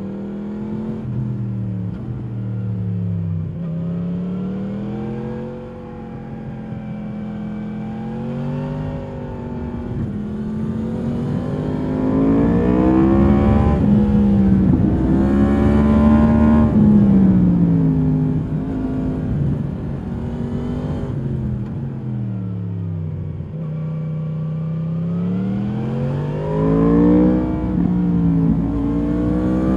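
2022 Yamaha MT-10's crossplane inline-four through its stock exhaust, ridden hard. The engine note repeatedly climbs under throttle and drops away off throttle, with the loudest, deepest pull about midway and another climb near the end.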